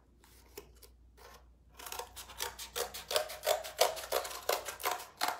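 Heavy-duty cardboard-cutting scissors snipping through corrugated cardboard: a quick run of short cuts, about three a second, starting about two seconds in.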